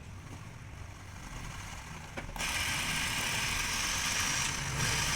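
Washing machine running after its drum bearings were replaced: a low mechanical hum, then about two seconds in the drum spins up with a sudden, steady whirring rush that holds.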